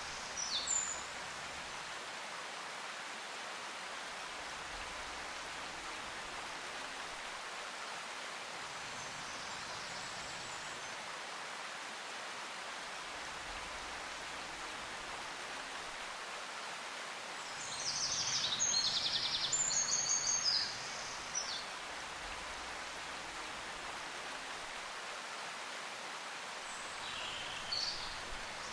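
Steady outdoor-sounding hiss with short bursts of quick, high chirping at the start, again about 18 to 21 seconds in, and faintly near the end.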